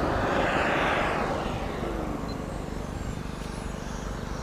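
JetCat P180 model jet turbine running at low power as the 1/6-scale F-16 model taxis: a rushing hiss that swells over the first second and a half, then eases to a quieter, steady run.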